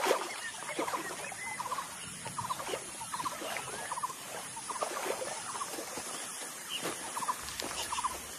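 Hooves of sambar deer splashing as they wade through shallow water, over a steady chorus of short chirping calls repeating several times a second.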